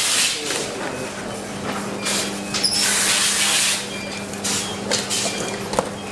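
Production-line machinery: two bursts of hissing air, one at the start and a longer one about three seconds in, over a steady machine hum, with a sharp click near the end.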